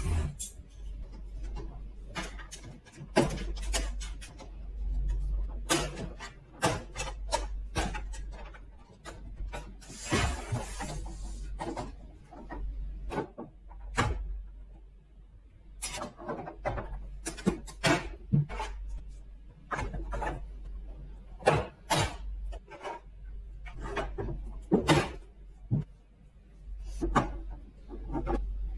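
Hard plastic parts of a toy horse-stable play set being handled and fitted together: irregular clicks and knocks as stall panels and gates are set down and pressed into the base, with a short scraping rub about ten seconds in.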